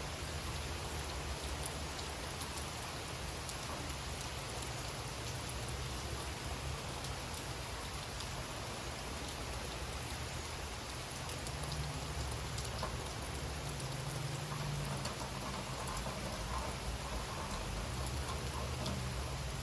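Steady summer rain falling in a forest, a constant hiss with individual drops ticking throughout.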